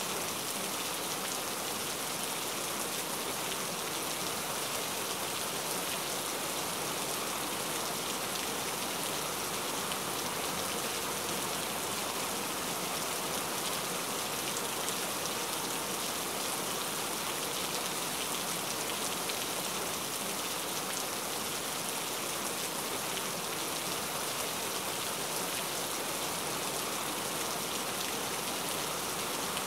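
Steady rain falling: an even hiss of many drops, with no let-up and no distinct single hits.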